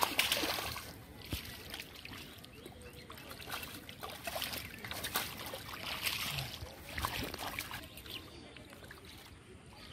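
Hands groping through shallow muddy water and wet plant debris: irregular splashing and rustling, loudest at the start and again around five to seven seconds in.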